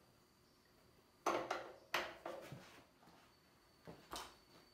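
Wooden boards knocking and clattering as lumber is handled: two sharp knocks about a second and a half and two seconds in, a short rattle after them, and two lighter knocks near the end.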